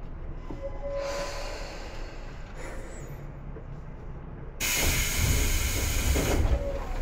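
Tobu 10030 series electric train running at speed, heard on board: a steady low rumble of wheels and running gear with a faint brief whine. About two-thirds of the way in, a loud rushing hiss comes in suddenly and lasts about two seconds, then drops away.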